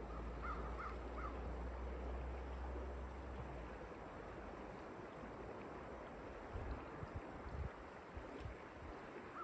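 Steady rush of river water, with a bird giving a quick series of short calls in the first second. A few dull low thumps come about two-thirds of the way through.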